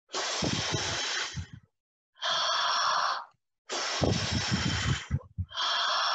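A woman blowing hard with her breath, miming the big bad wolf blowing: four long, noisy breaths of about a second each, with short pauses between.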